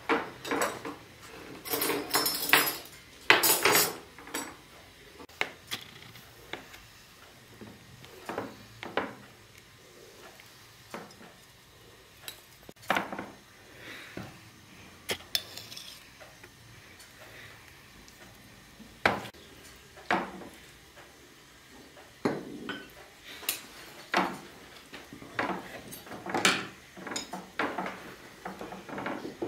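Knife and china clinking as a rolled sponge cake is cut and slices are set down on porcelain plates, with scattered clinks of a fork on a plate. A busier run of clatter comes in the first few seconds, then irregular single clinks.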